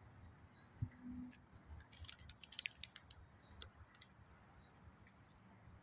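Near silence: faint ambient hiss with one soft thump about a second in and a brief run of faint sharp clicks a little later.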